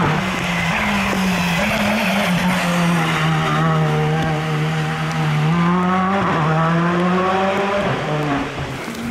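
Škoda Fabia Rally2 evo rally car's 1.6-litre turbocharged four-cylinder engine running hard through a corner, its pitch dipping and rising again in the middle, then briefly dropping twice near the end.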